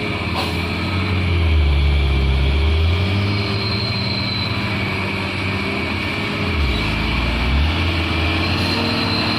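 Diesel truck engine running hard under load, its note shifting as the revs change, with two louder, deeper surges about two and seven seconds in.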